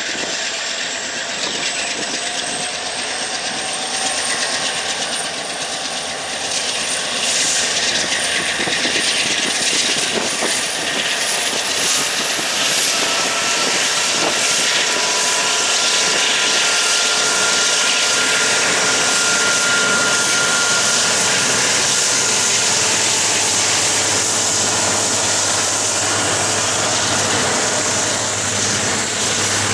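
Three diesel-electric freight locomotives, an EMD SD70ACe leading a GE AC4400CW and an EMD SD70M, accelerating hard under load, their engines running with a high whine that climbs in pitch over the first dozen seconds and then holds. The sound grows louder for several seconds, then stays loud and steady.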